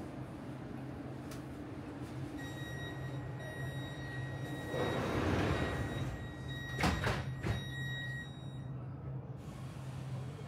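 Metro car at a station: a steady low hum with a high, steady warning tone starting about two seconds in and lasting about six seconds. A hiss of air comes midway, then the doors slide shut with a few knocks about seven seconds in.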